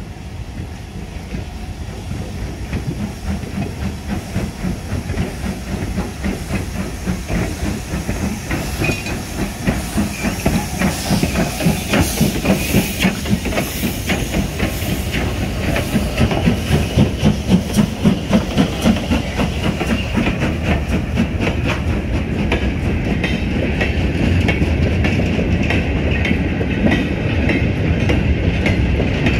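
LMS Stanier 8F 2-8-0 steam locomotive 48624 approaching and passing close by, its exhaust beating in a regular rhythm with steam hissing, the beats loudest midway. Near the end its freight wagons roll past with wheels clattering over the rail joints.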